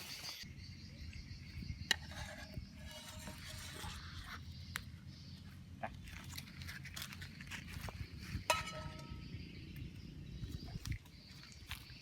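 Scattered clinks and taps of utensils and dishes over a low steady rumble, with one sharper clink about eight and a half seconds in that rings briefly.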